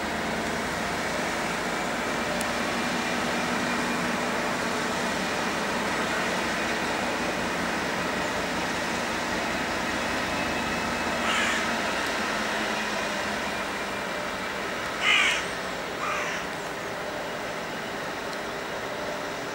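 Colas Rail Class 56 diesel locomotive's 16-cylinder engine running steadily as it hauls a train of timber wagons slowly along the track. Three short, harsh bursts cut in over the engine about eleven, fifteen and sixteen seconds in, the one at fifteen the loudest.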